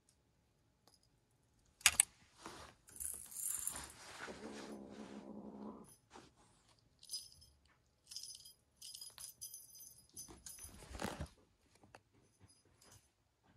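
A kitten playing with a feather wand toy on a rug: soft scuffs and taps, a sharp click about two seconds in, and light, high-pitched jingling coming and going in the second half.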